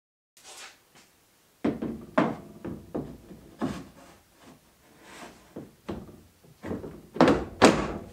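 Metal tube backrest frame knocking and clattering against the amphibious 8x8 vehicle's body as it is lowered and fitted into place. The knocks are irregular, and the two loudest come close together near the end.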